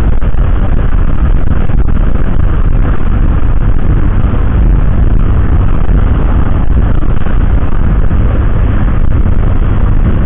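Loud, steady wind buffeting on the microphone of a camera riding on a moving Honda Vario 125 scooter, with the riding noise of the scooter and road underneath.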